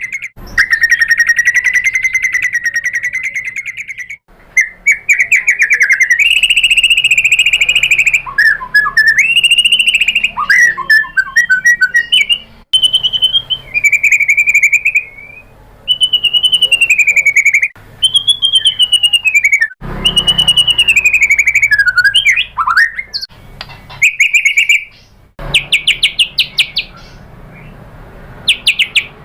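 White-rumped shama (murai batu) singing a long, varied song: buzzy trills, rising and falling whistled phrases and fast chattering runs, broken by short pauses.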